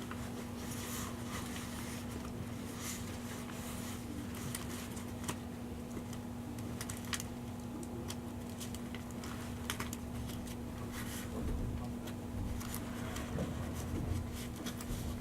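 Cabin ambience of an E351-series limited express car standing at the platform before departure: a steady hum, with scattered small clicks and knocks.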